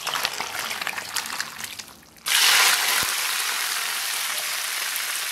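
Spicy broth poured over fish, vegetables and noodles in a steel pot, splashing and crackling. About two seconds in, it gives way to a loud, steady sizzle of hot oil poured over dried chillies, Sichuan peppercorns and sesame on sliced fish.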